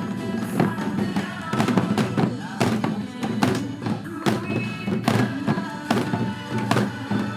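A group playing janggu, Korean hourglass drums, gogo-janggu style: sharp, frequent drum strikes over a recorded trot backing track.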